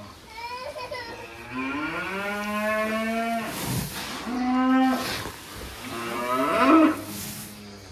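Cattle mooing: about four calls in a row, the longest lasting about two seconds near the start and the loudest near the end. The bulls and heifers are calling for their feed of crushed grain.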